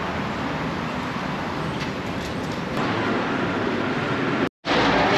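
Steady city street traffic noise from passing cars, growing a little louder about three seconds in and cutting out briefly near the end.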